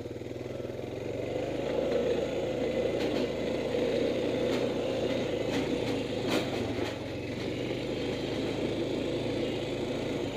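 Small utility vehicle's engine running steadily while driving, with a few sharp rattles in the middle stretch.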